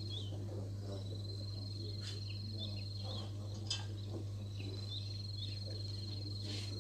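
An insect trilling at a high, steady pitch in three long stretches of two to three seconds each, with short bird chirps in between, over a steady low hum.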